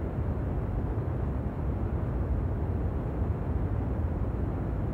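Jet aircraft in flight: a steady, even engine rumble, heaviest in the low end, with no change in pitch or level.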